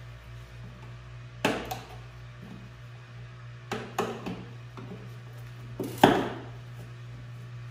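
Plastic lid being pressed down onto a plastic bucket: a handful of sharp knocks and snaps, the loudest about six seconds in. A steady low hum runs underneath.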